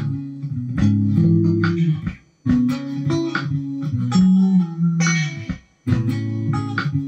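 Electric guitar played through an amplifier: slow, soulful picked chords and single notes that ring on, breaking off briefly twice, about two and a half and six seconds in.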